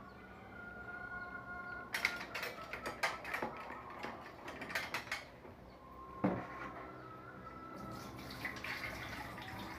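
Metal kitchen utensils clatter and clink as they are handled on a hanging utensil rack, with a single knock a little later. Near the end comes a stream of liquid poured from a stainless steel bowl: the salty liquid being drained off grated santol.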